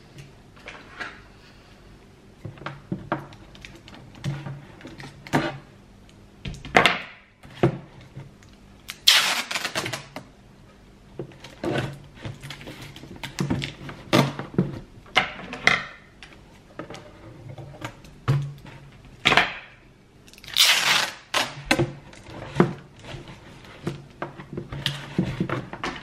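Hands handling a cardboard gift box during wrapping: an irregular string of taps, scrapes and rustles, with two longer rasping rustles about nine and twenty-one seconds in.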